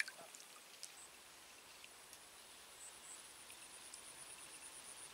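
Near silence, with a brief faint splash right at the start and a faint high-pitched insect trill pulsing through the second half.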